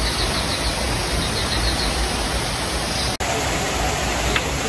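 Steady rush of waterfalls pouring over rockwork into a pool, with a brief dropout about three seconds in.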